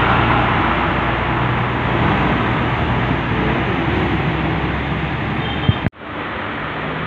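Diesel truck engine running as the truck passes close by on a wet road, with a steady hiss over it. The sound cuts off abruptly near the end and gives way to quieter, steady road noise.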